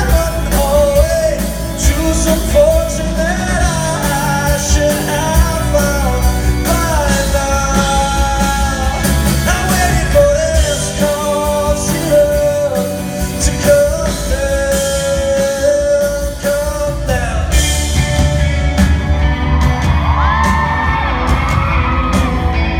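Live pop-rock music: a singer carrying the melody over a full band with drums and guitar, with yells from the audience.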